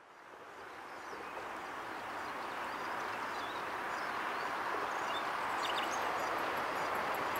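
PKP SU45 (Fiat 301D) diesel locomotive with its train approaching from a distance: a steady noise that fades in from silence and grows gradually louder, with a few bird chirps over it.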